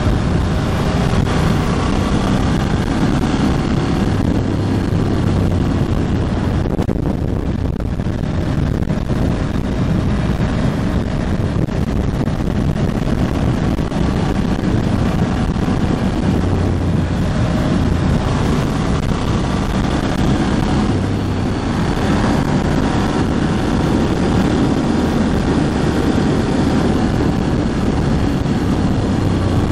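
Ducati Hypermotard 1100S's air-cooled L-twin engine running while riding, with wind rushing over the microphone; the engine is in its run-in period. The note eases briefly about seven seconds in and again around twenty-one seconds.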